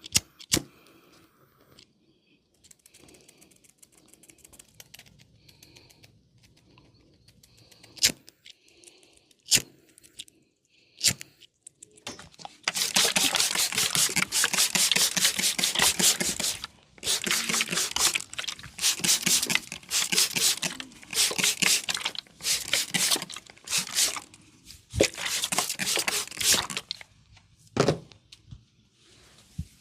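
Barber's hand massage of the head and ears heard close up: long bursts of fast, crackly rubbing of hands over skin and hair, loudest through the second half, with a handful of single sharp snaps scattered before and after.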